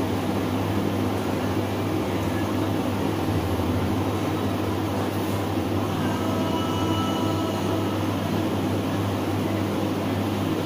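A steady low mechanical hum and rumble, with a faint thin whine that comes in about six seconds in and fades out about two seconds later.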